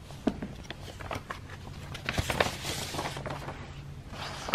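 Paper rustling and sliding as a card is drawn out of a manila envelope and opened, with a few light ticks of paper handling and a longer soft rustle about two seconds in.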